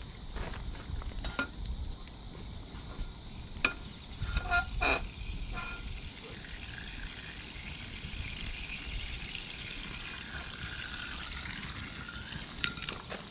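Formed meat sizzling over a campfire: a steady hiss, with a few sharp crackles and pops from the fire about four to five seconds in.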